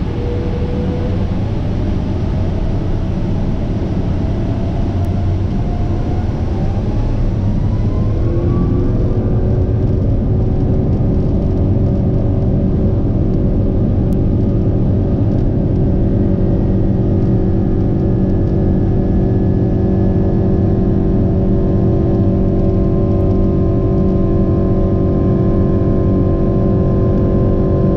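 Boeing 777-200ER's Rolls-Royce Trent 800 engines heard from the cabin, spooling up with a rising whine over the first eight seconds or so. They then hold a steady drone of several tones at takeoff thrust as the takeoff roll gets under way.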